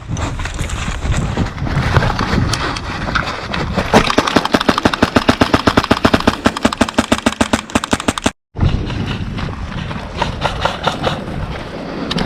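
An airsoft rifle firing full-auto: a long rapid string of sharp cracks, roughly a dozen a second, lasting about four seconds. It is broken by a brief gap of silence, and shuffling movement noise and a few scattered shots come before and after.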